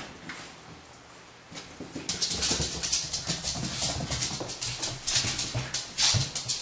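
Small dogs moving about, with a quiet first two seconds and then a loud run of rapid, rough rustling and scratching noises.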